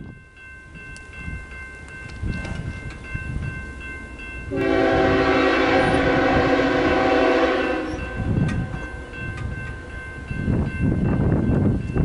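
Railroad grade-crossing bell ringing steadily, with a low rumble underneath. About four and a half seconds in, the air horn of the approaching BNSF freight's lead locomotive, an ES44DC, sounds one long blast of about three and a half seconds.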